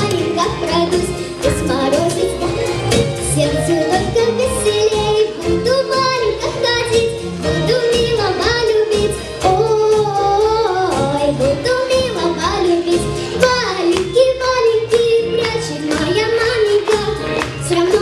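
A girl singing a melody with vibrato over a backing track with a steady beat.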